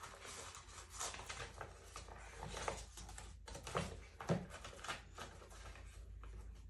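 Faint rustling of paper with a handful of light taps and clicks scattered through, as craft papers and sticker sheets are handled.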